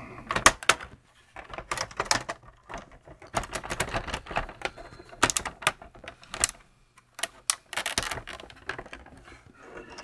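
Irregular clicks and knocks of the Tandy Model 200's plastic case and display lid being handled and pressed together while its LCD ribbon cable is fitted, some in short rattling clusters.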